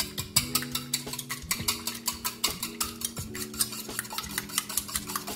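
Wire whisk beating eggs in a bowl, clinking rapidly against the sides at about six or seven strokes a second.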